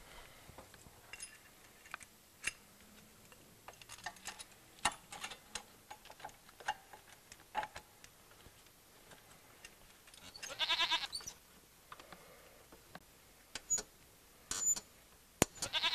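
Scattered light metallic clicks and clinks as a brake-shoe spreading tool is handled and fitted across the shoes of a rear drum brake. About ten seconds in there is one brief, wavering high-pitched sound.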